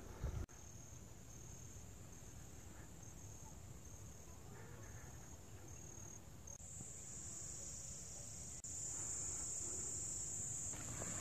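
Insects chirring in a thin, high buzz. It comes in short pulses at first, then turns into a louder, unbroken drone about two-thirds of the way in, over a faint low rumble.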